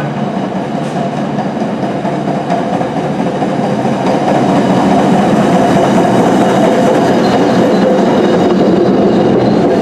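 Train passing: a steady rumble of cars rolling on the rails with some clickety-clack, growing a little louder about four seconds in.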